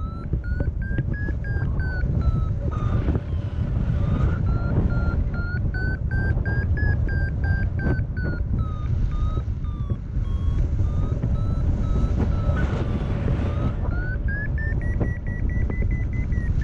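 Paraglider's variometer beeping in quick pips, the pitch slowly rising and falling and highest near the end, a climb tone that signals the glider is rising in lift. Heavy wind noise on the microphone lies under it.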